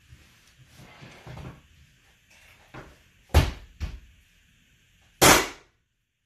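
Pneumatic flooring nailer driving nails into hardwood boards: a sharp bang about three and a half seconds in, a smaller one just after, and a louder shot with a burst of air near the end, between faint scuffing of boards.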